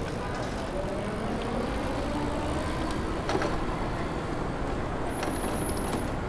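Steady city traffic noise heard from a moving bicycle, a continuous rumble of passing cars and trucks, with one brief knock about three seconds in.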